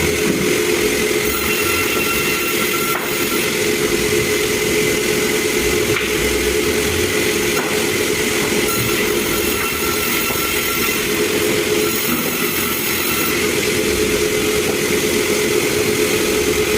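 Sawmill machinery running steadily, with a high whine that comes and goes twice.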